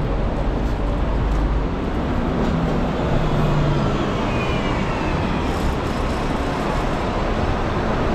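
Road traffic on a busy city street: a steady rumble of passing vehicles, with a faint high falling whine about halfway through.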